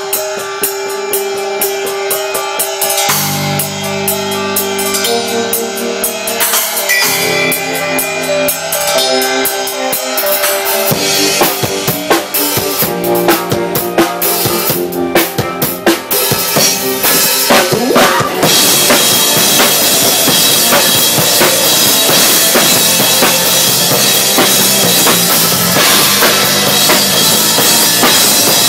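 A band playing at a sound check: drum kit with bass and held pitched notes. About 18 seconds in it grows louder and fuller, with cymbals washing over everything.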